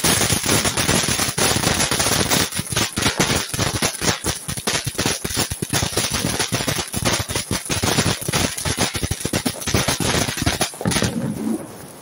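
Ground fountain firework hissing as it sprays sparks, with fast, dense crackling pops from its crackling stars, stopping abruptly about eleven seconds in.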